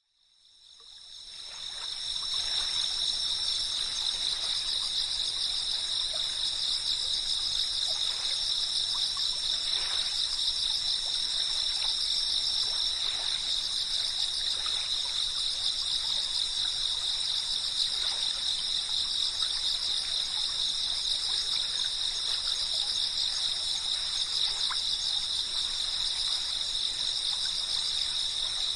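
Dense chorus of chirping insects, a steady high-pitched pulsing drone that fades in over the first two seconds and then holds level.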